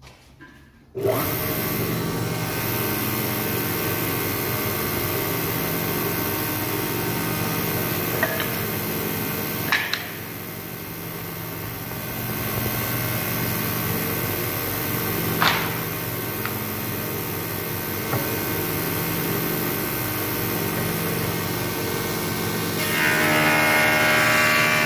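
Spindle moulder switched on about a second in, its motor then running steadily with a hum, with a few brief knocks along the way. Near the end a board is fed along the fence into the cutter, and the sound grows louder and harsher as the wood is cut.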